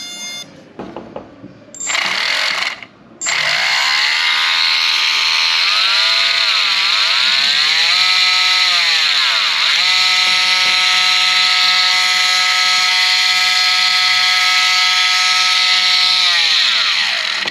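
Brushless motor of an RC boat drive spinning under power: a loud high whine over a hiss, after a short burst about two seconds in. Its pitch dips and rises a few times, then holds steady for several seconds before winding down near the end.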